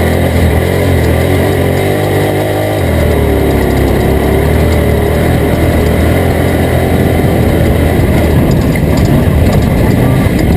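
Engine of a Toyota Tacoma off-road race truck running hard at race speed, loud and continuous, its low note changing about three seconds in.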